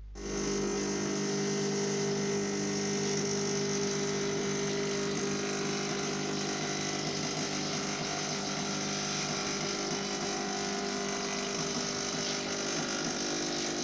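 Kärcher washing (spray-extraction) vacuum cleaner running steadily, a hum under a rushing hiss, as its upholstery nozzle is drawn over the wet sofa fabric to extract the cleaning solution.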